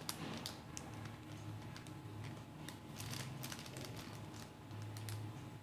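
Faint, irregular light clicks and crinkles of a plastic-packaged sheet of pearl ear studs being handled, over a low steady hum.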